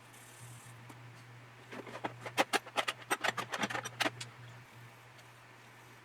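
A quick run of light, sharp clicks and clatters, about two seconds long, from small hard items being handled on a modelling workbench, over a steady low hum.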